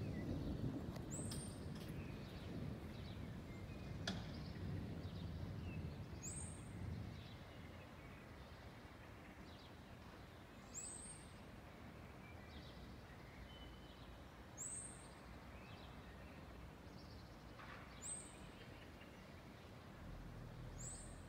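Faint background with the low rumble of distant thunder dying away in the first couple of seconds. After that, a bird gives a short, high call about every four seconds, six times in all.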